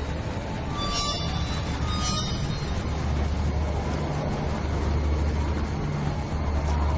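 Low, steady rumble with a hiss of rushing wind, the sound of an approaching dust storm, slowly growing louder. Two short, higher sounds cut through about one and two seconds in.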